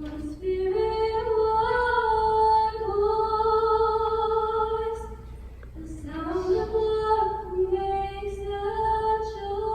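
A woman singing a slow melody in long held notes, with no accompaniment heard: two phrases with a short break about five seconds in.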